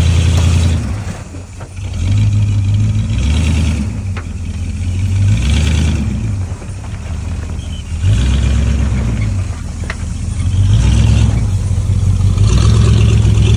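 A 4x4's engine working over rough off-road ground, the throttle swelling and easing off every few seconds, with a few sharp knocks.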